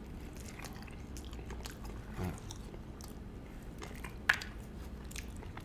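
Close-up mouth sounds of someone chewing and biting fried chicken, with small wet clicks and one sharp click about four seconds in.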